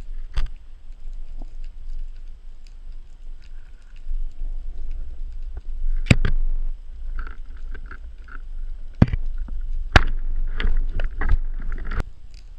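Underwater sound heard through a camera housing: a steady low rumble of moving water, with sharp knocks and clicks scattered through it, the loudest about six seconds in and near the end.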